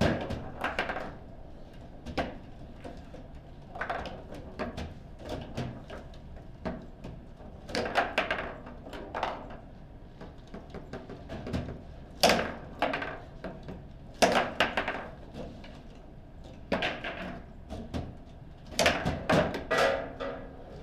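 Table football rally: the ball cracking against the rod-mounted player figures and the table's walls, with rods sliding and clacking, in irregular flurries of sharp knocks separated by short lulls.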